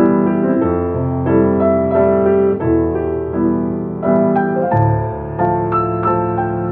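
Piano music: a slow melody over chords, the notes changing about every half second.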